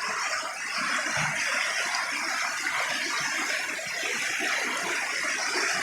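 Steady rushing of a rain-swollen river running high against its bank.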